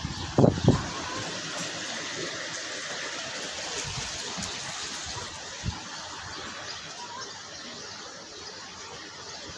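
Steady rush of flowing water, with a few low thumps about half a second in and a single one near the middle.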